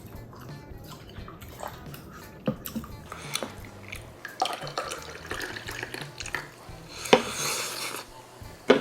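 Dishes and utensils clinking, with a short stretch of liquid splashing about two-thirds of the way in, over background music.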